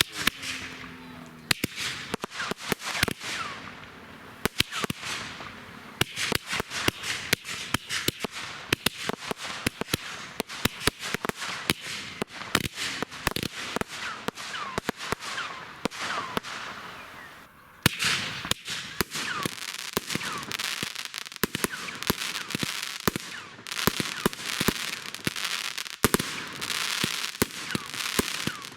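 Fireworks going off in rapid succession: dense bangs, pops and crackling, with some short rising whistles. The firing thins out briefly about two-thirds of the way through, then picks up again with a loud bang.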